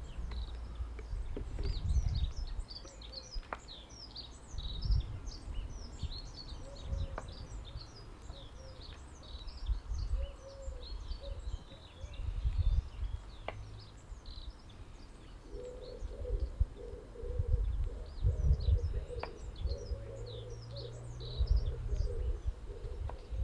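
Garden birds chirping and singing throughout, with a pigeon cooing in the second half. Low thumps and a few sharp clicks come from a knife working cheese on a wooden chopping board.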